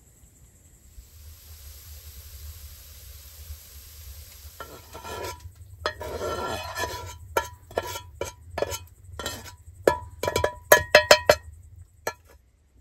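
A metal utensil scraping and tapping grated beetroot out of a frying pan into a pot, with a ringing metallic tone. The scrapes start about halfway in after a faint low hum, and near the end come as quick, loud taps on the pan.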